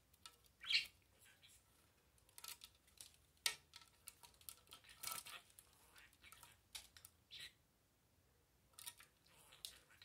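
Budgerigar bathing in a small plastic bath dish: short, irregular, faint splashes and flicks of water as it dips and shakes, with quiet gaps between them.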